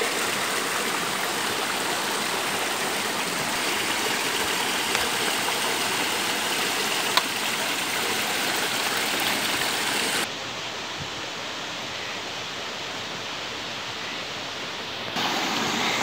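A small rocky stream rushing and splashing over boulders: a steady water noise. About ten seconds in it turns quieter and duller for about five seconds, then comes back.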